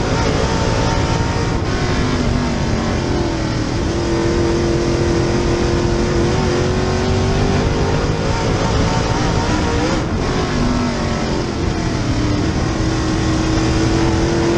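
Super Late Model race car's V8 engine at full race load, heard from inside the car. Its pitch dips twice, about two seconds in and again around ten seconds in, as the driver lifts for the corners, then climbs back and holds.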